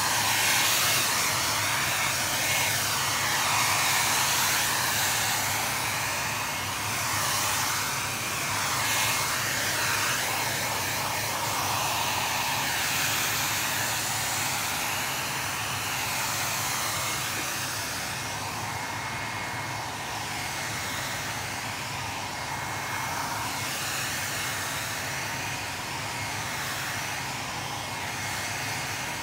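Handheld hair dryer blowing steadily to dry a freshly sprayed coat of clear leather lacquer, with a faint steady high whine. The rush of air swells and eases a little as the dryer is swept over the seat.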